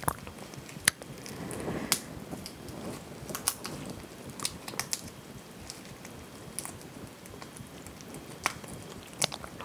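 Crayfish shells cracking and snapping as they are broken apart and peeled by gloved hands, sharp cracks about one every second, with some chewing between them.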